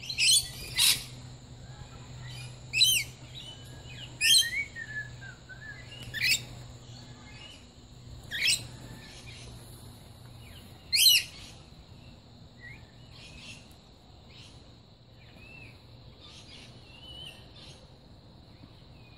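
Rainbow lorikeet screeching: about seven loud, sharp, high-pitched screeches in the first eleven seconds, then softer, scattered chirps, over a steady high-pitched drone.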